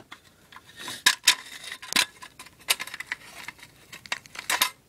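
Light metallic clicks and clinks of a folding metal pocket stove being handled on the floor, with a few sharper knocks about a second and two seconds in and a short cluster near the end.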